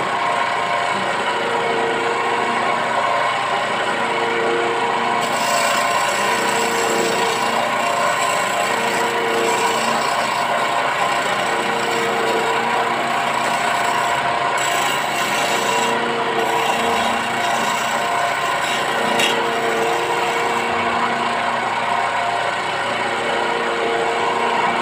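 Electric wood lathe running steadily with a rasping rub as a hand works the spinning teak table leg, most likely sanding it smooth.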